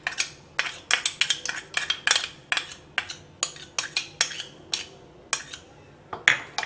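A metal spoon clinking and tapping against a glass bowl in a quick, irregular run of sharp taps as ginger-garlic paste is spooned into the spiced yogurt.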